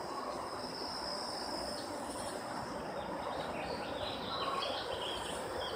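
Outdoor ambience: a steady high insect trill with a few short bird chirps over the middle of the stretch, over a broad background hiss.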